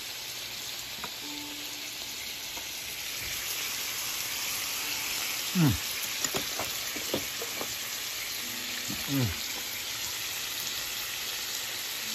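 Slices of beef tongue, shrimp and vegetables sizzling steadily on a tabletop hibachi griddle, the hiss growing a little louder about three seconds in. A voice makes two short sounds, about six and nine seconds in.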